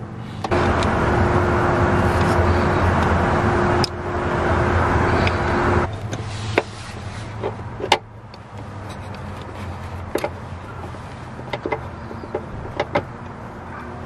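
A small electric motor runs steadily for about five seconds with one constant whine, dipping briefly near the middle. It is followed by scattered light clicks and knocks of metal hardware being handled while a bolt is threaded by hand into the harness bar's lower mount.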